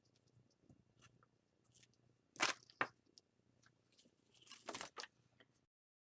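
Hands handling cord strung with woven rattan balls and wooden beads: scattered crackling and rustling, with two sharp crackles about two and a half seconds in and a longer rustle a little later.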